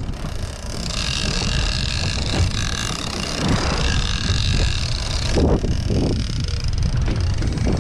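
Boat engine running under wind buffeting the microphone, with water splashing along the hull from about five and a half seconds in.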